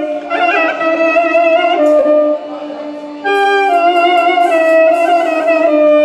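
Live band music: a clarinet plays a melody over electronic keyboard accompaniment. About two seconds in, the music drops quieter for about a second, then comes back at full strength.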